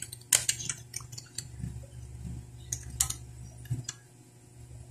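Typing on an HP laptop keyboard: a run of irregular key clicks as a chat message is typed, stopping a little before four seconds in.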